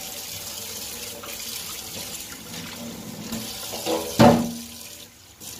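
Tap water running into a stainless steel kitchen sink as the sink is wiped down with a sponge. A single short, loud knock with a brief ring comes about four seconds in.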